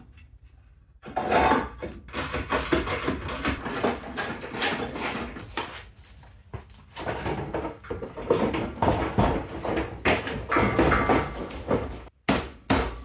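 Plastic car front bumper and its brackets being handled and pushed into place on the car's front end: an irregular run of knocks, clatters and rubbing, starting about a second in.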